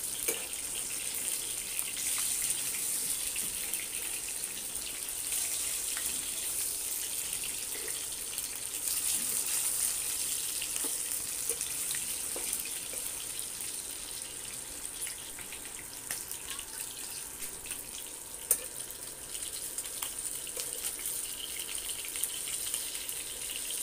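Catla fish steaks sizzling and crackling in hot oil in a non-stick wok, a steady high hiss, with a single sharp click about 18 seconds in.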